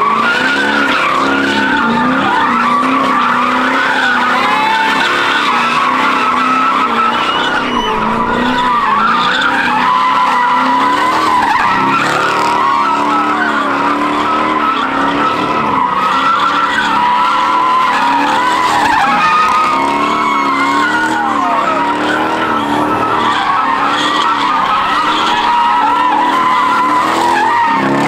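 Dodge Charger doing donuts: its tyres squeal without a break over the engine held at high revs, both rising and falling in pitch as the throttle is worked.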